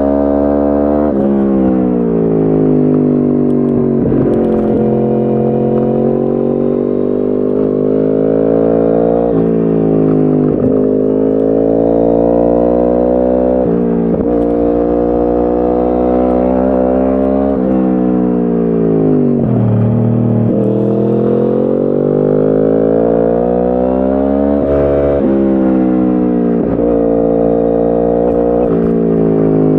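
2010 Yamaha R1's crossplane inline-four engine through a decat Akrapovic exhaust, accelerating hard through the gears. The note climbs and then drops sharply at each upshift, winds down for a few seconds about two-thirds of the way through, and then builds again.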